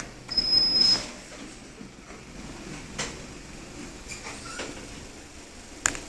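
A 2002 traction passenger lift's car doors sliding shut. About half a second in there is a short high beep over a rush of noise, then a few clicks, and a sharp knock near the end as the doors close before the car moves off.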